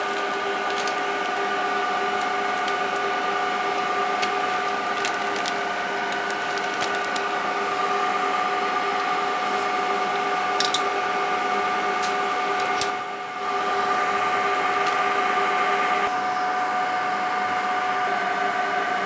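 Steady whir of electronic-equipment cooling fans with several constant whining tones, and a few sharp clicks scattered through, with a brief dip about two-thirds of the way in.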